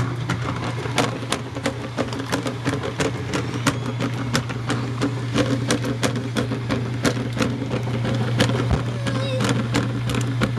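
Washing machine running: a steady motor hum with irregular clicks and knocks throughout.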